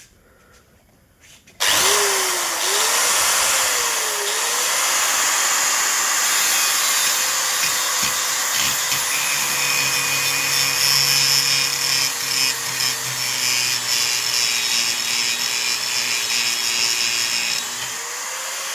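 Electric angle grinder switched on about a second and a half in and running loudly, its motor pitch dipping and recovering under load as it cuts acrylic sheet, then running fairly steadily.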